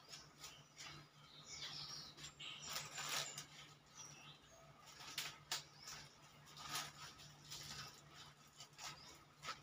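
Faint rustling and crinkling of a plastic bag of vegetables being handled, with scattered light clicks and knocks, over a low steady hum.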